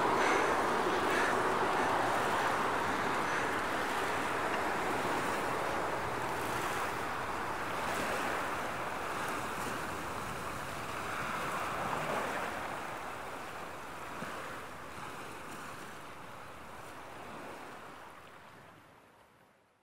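Steady rush of wind and sea surf, slowly fading out near the end.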